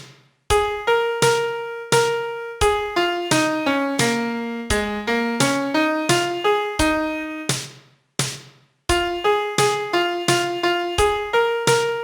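Piano playing a song melody one note at a time, each note struck and decaying. There are brief breaks between phrases, one about half a second in and another about two-thirds of the way through.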